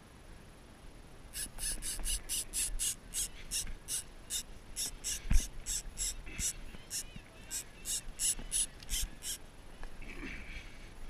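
Avet MXL lever-drag reel giving line in a rapid string of short buzzing pulses, about three or four a second, as a hooked stingray runs against about 14 lb of drag. A single sharp knock about halfway through.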